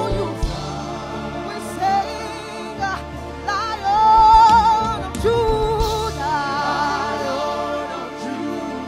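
A woman's solo voice leading a gospel worship song over instrumental backing, holding long notes with vibrato.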